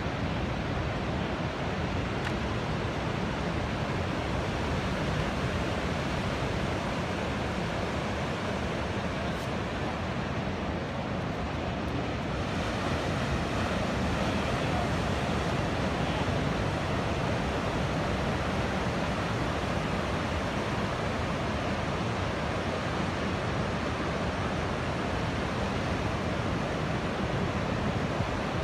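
Ocean surf breaking and washing steadily onto a beach, with wind buffeting the phone's microphone.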